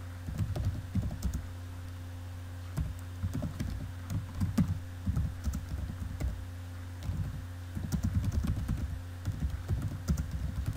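Typing on a computer keyboard in quick, irregular runs of keystrokes, with a pause of about a second near the start. A steady low hum runs underneath.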